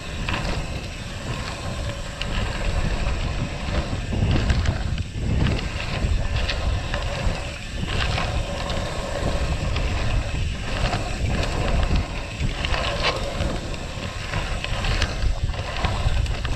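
Wind buffeting the microphone: a constant low rush that rises and falls in gusts.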